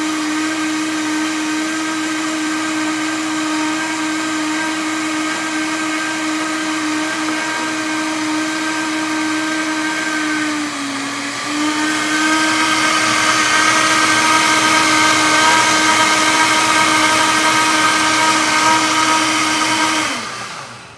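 Vitamix blender motor running at high speed, blending a thick cashew-and-bean cream. It dips briefly about halfway through, then runs louder, and winds down as it is switched off near the end.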